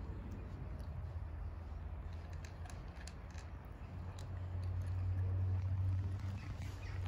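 Two cats crunching dry kibble: scattered small crisp crackles over a steady low rumble that swells in the second half.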